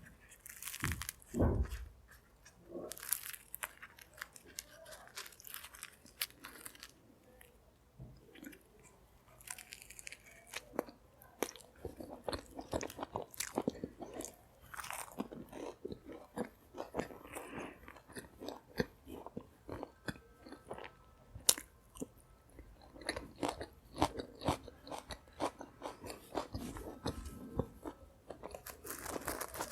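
A person chewing and biting food close to the microphone, with many short, irregular crunchy clicks and a louder bite about a second and a half in.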